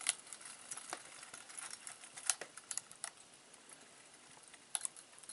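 Fresh pine pieces in a tin-can woodgas stove crackling as they catch, with scattered sharp pops over a faint hiss from the smoky fire.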